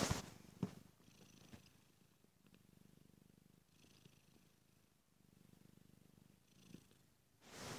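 Domestic cat purring softly, the low rumble swelling and fading in slow waves with its breathing. Short bursts of rustling noise come at the start and again near the end.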